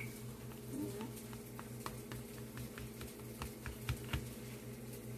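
A knife cutting into a baked apple crumble in a metal cake pan: a run of small, irregular clicks and crunches as the blade breaks through the crisp topping and taps against the pan.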